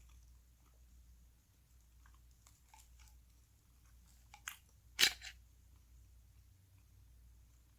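Close-miked eating sounds of Spam ham: faint chewing and mouth clicks, with a short sharp crunch about five seconds in, just after a smaller one.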